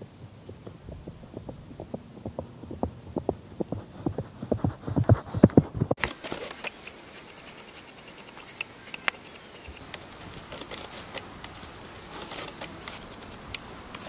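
A run of irregular dull thuds that grow louder and closer together over about six seconds, then stop abruptly at a cut. After that it is quieter, with scattered faint clicks.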